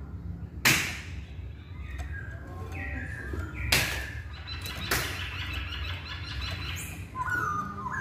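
A Chinese hwamei (Hongkong poksay) sings short whistled, gliding notes and a quick trill, broken by three sharp clicks, the first near the start being the loudest.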